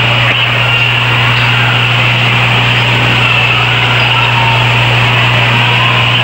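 Steady hiss with a low, constant hum: the background noise of an old VHS recording of a television broadcast, with no speech.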